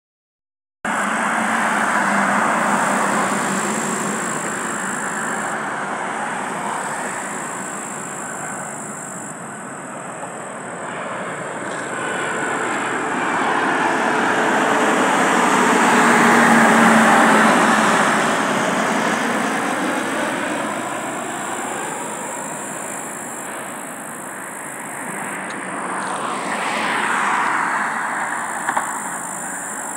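Boeing 737-800's CFM56 turbofan engines on landing approach, a broad jet rush that builds as the airliner passes low overhead about halfway through, then fades. Road traffic runs underneath, with a vehicle passing near the end.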